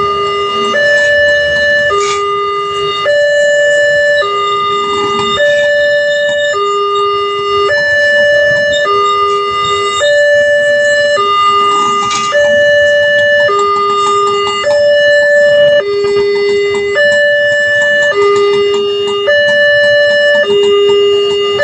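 Railway level-crossing warning siren sounding two electronic tones, low and high, each held about a second, repeating steadily. It warns that a train is approaching the crossing barrier.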